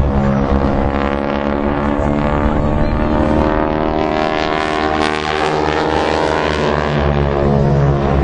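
Aircraft engine noise from a plane flying past, its pitch pattern slowly sweeping as it passes.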